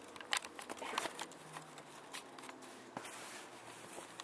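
Rustling and scattered sharp clicks of a camera being handled and moved against clothing.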